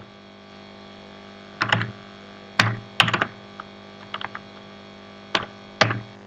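Keys pressed on a computer keyboard: a handful of sharp clicks at irregular intervals, some in quick pairs or short runs, over a faint steady hum.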